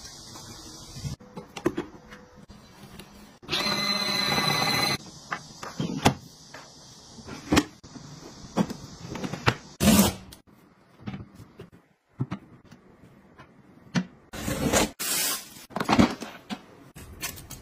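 Plastic household gadgets being handled: a string of clicks, taps and clunks, the loudest about ten seconds in and near the end. A small machine hums for about a second and a half a few seconds in.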